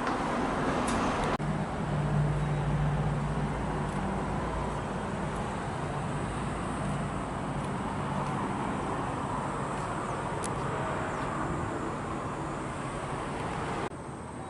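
Vehicle running noise with a low engine hum, broken by two sudden cuts about a second in and near the end.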